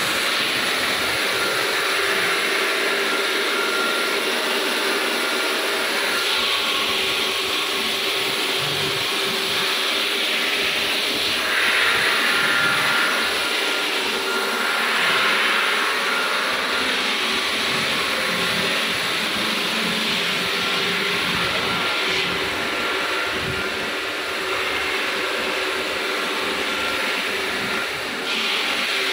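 Steady machine noise: an even rushing hiss with a faint steady hum underneath, swelling slightly a few times.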